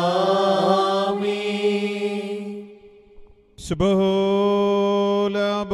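Liturgical chant: voices singing long, held notes in a slow church melody. The first phrase fades out about halfway through, and a new held note begins near the end.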